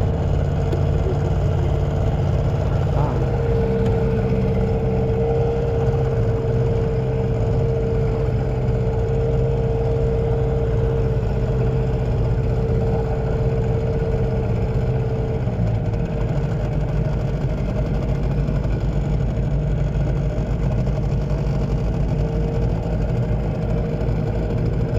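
Hangkai outboard motor running steadily as the boat moves along; its note changes about fifteen seconds in.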